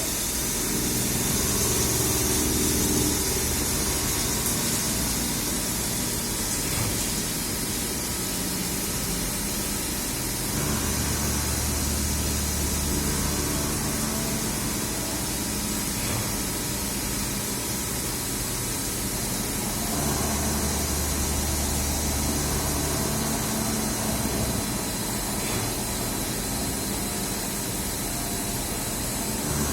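Machinery running steadily, with a constant hiss and a low hum that switches on for a few seconds at a time, twice in the middle stretch.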